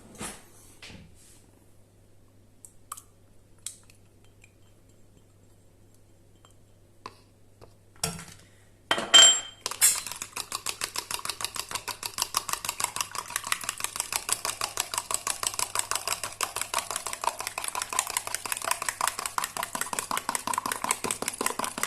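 Eggs being beaten in a bowl with a utensil that clinks against the bowl about five times a second, starting about ten seconds in after a few faint clicks and one louder clatter.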